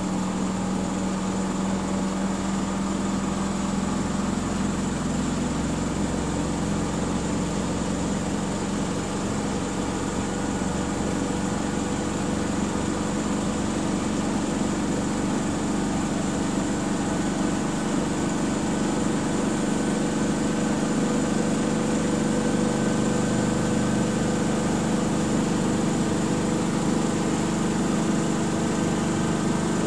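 Miele W 5963 washing machine on its spin cycle: a steady mechanical hum with several steady tones from the spinning drum and motor.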